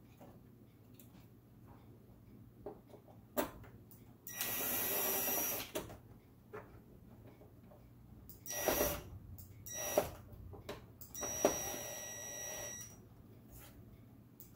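Wire terminals being pulled off and pushed onto a stove burner's control switch, one wire at a time: scattered sharp clicks and several short scraping rustles of metal and wire. The two longest rustles come about four seconds in and near the end.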